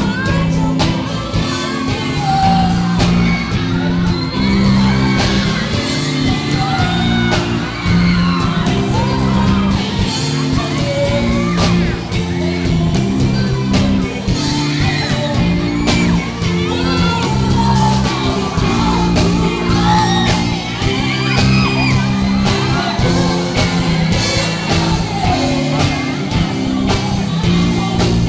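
Male pop singer singing live into a handheld microphone over loud backing music, in a large hall, with audience whoops and screams mixed in.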